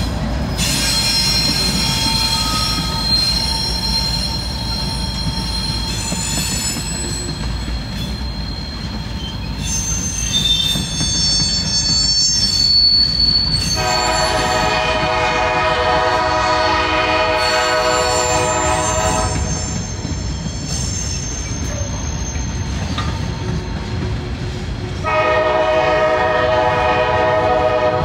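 Freight train wheels squealing as the cars grind around the curve of the transfer track, a set of high thin whistles over the low rumble of the rolling cars. A locomotive horn sounds twice: a long blast about 14 seconds in lasting some five seconds, and another near the end.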